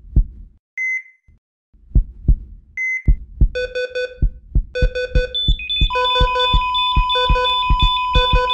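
Electronic news music sting: heartbeat-like double thumps and two short high beeps, then a pulsing synthesizer pattern over a steady beat, with a sustained tone joining about six seconds in.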